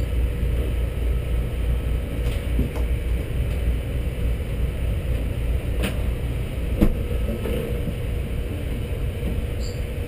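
Steady low rumble of running machinery with a faint steady hum over it, and two short clicks about six and seven seconds in, the second the louder.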